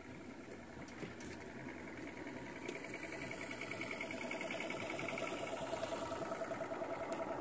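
Small boat's motor running with a steady, pulsing whir, slowly getting louder.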